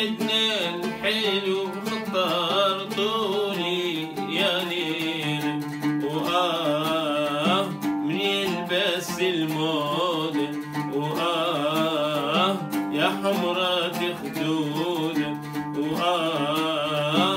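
Oud playing with a man singing long, wavering, ornamented phrases of Iraqi folk song over a steady, sustained low accompaniment.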